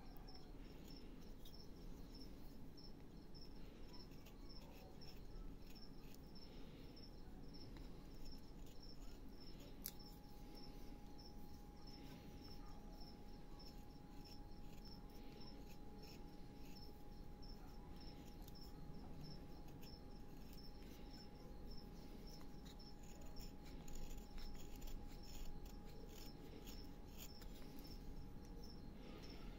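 Small carving knife cutting and paring a small block of soft wood by hand, with a run of short, quiet slicing and scraping strokes. A cricket chirps steadily in the background.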